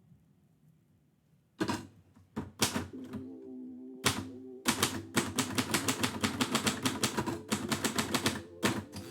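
Typewriter keys striking the platen: a few separate strokes, then a quick, even run of typing at about four to five strokes a second.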